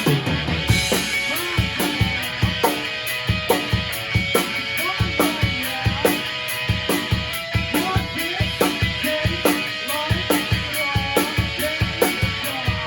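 Rock music with a drum kit keeping a steady, busy beat under pitched instrument lines that bend in pitch.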